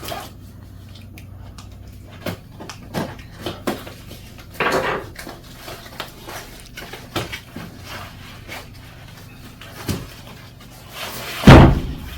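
Parts and packaging being handled inside an electric bike's shipping box: scattered knocks, clicks and rustles, with one loud heavy thump near the end.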